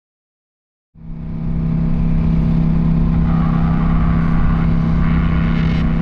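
2009 KTM 990 Adventure's V-twin engine running steadily as the bike rides along. It fades in about a second in and then holds one steady pitch.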